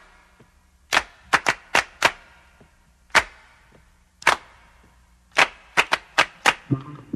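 A series of sharp clicks or knocks, about a dozen, irregularly spaced with some in quick runs, each with a short ringing tail. Music begins faintly near the end.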